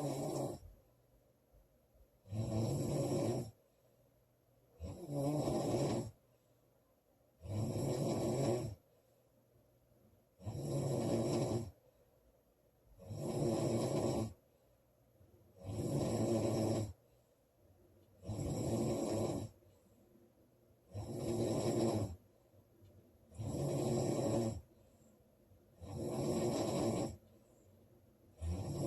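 A woman snoring loudly in a steady rhythm: about eleven snores, one roughly every two and a half seconds, each lasting just over a second, with quiet between.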